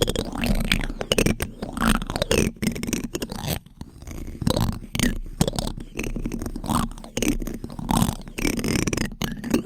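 A spoon scraping and rubbing against a microphone in close, irregular strokes, roughly one or two a second.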